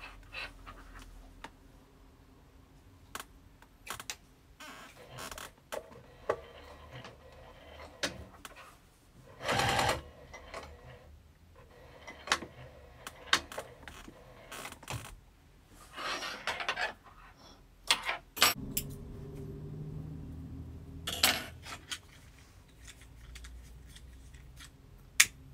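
Sewing machine stitching through vinyl and canvas in short runs, the longest steady run coming about two-thirds of the way through, amid scattered clicks and rustles of handling the fabric.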